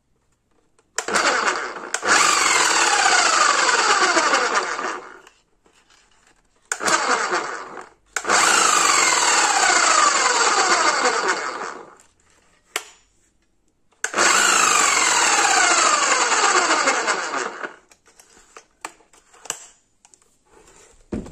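Bosch GBH 11 DE demolition hammer running in three bursts of about three to four seconds each, with short blips between them and a falling tone through each run. These are test runs of the electro-pneumatic hammer after its hammering action was repaired.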